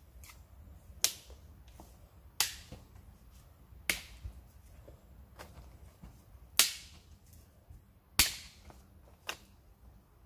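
Dry sticks being snapped by hand for firewood: about six sharp, separate cracks at uneven intervals, a second or two apart.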